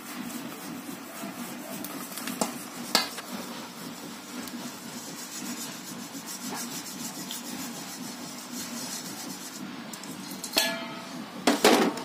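Coarse flour being shaken and rubbed through a hand-held metal sieve over a large steel bowl, a steady gritty rubbing. The sieve's rim knocks against the bowl a couple of times early on and several times, louder, near the end.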